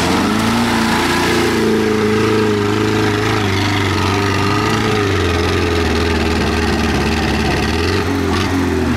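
Tractor engine running steadily, with a slight shift in its low tone about halfway through.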